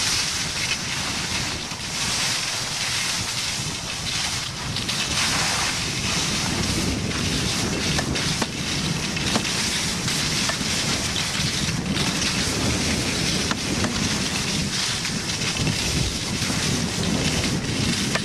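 Wind buffeting a camcorder's microphone as the skier holding it skis downhill: a steady rushing noise with a low rumble.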